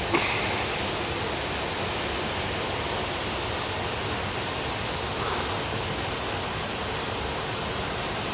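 Steady rushing of flowing water, an even hiss that holds unchanged throughout, with a small click just at the start.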